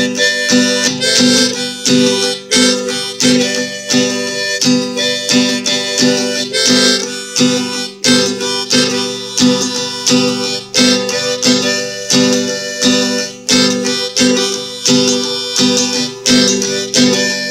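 Harmonica playing an instrumental break over a steadily strummed acoustic guitar.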